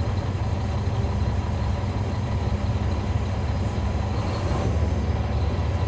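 The Caterpillar C13 ACERT diesel engine of a NABI 40-SFW transit bus running steadily, a deep even drone heard from the rear seats inside the cabin.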